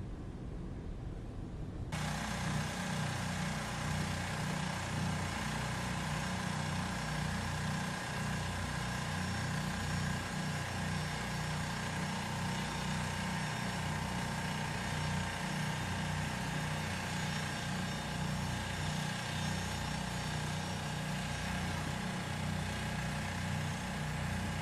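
LC-130 Hercules turbine engine noise running steadily on the ice: a held whine made of several steady tones over a dense low rumble. It is preceded by a quieter hiss and comes in about two seconds in.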